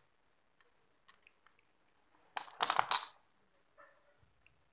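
Power transistors handled in the hand, their plastic bodies and metal tabs clicking against each other. A few faint clicks come first, then a short louder clatter about two and a half seconds in.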